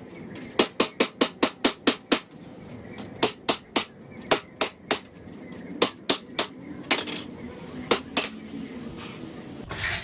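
Hammer blows on pallet wood, in quick runs of about five strikes a second with short pauses between the runs.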